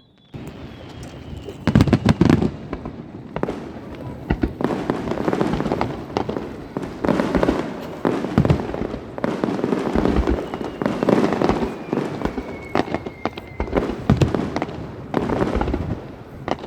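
Aerial fireworks display: shells bursting in a continuous run of booms, each followed by crackling. A thin whistle falls slowly in pitch around the middle.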